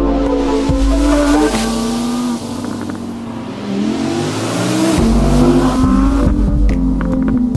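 Audi R8's 5.2-litre V10 accelerating hard through the gears. Its pitch climbs, drops at upshifts about a second and a half and two and a half seconds in, stays lower and softer for a couple of seconds, then climbs again past the middle.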